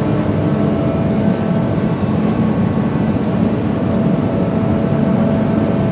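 Steady mechanical drone: a low, even hum with a few constant tones held throughout, unchanging for the whole stretch.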